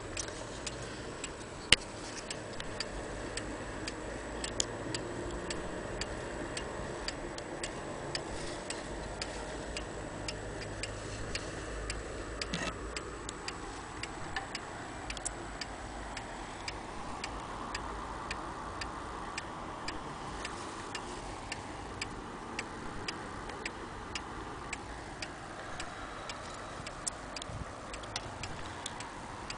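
Hermle Westminster pendulum wall clock's mechanical movement ticking steadily, with one sharper, louder click about two seconds in.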